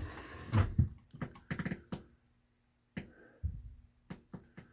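A string of irregular clicks and knocks with a few soft low thumps, and a short quiet gap about two seconds in.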